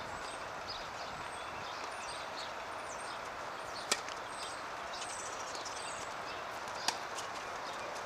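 Tennis racket striking the ball on a serve about four seconds in, a single sharp crack, followed about three seconds later by a lighter second hit of the ball. Small birds chirp over a steady outdoor background.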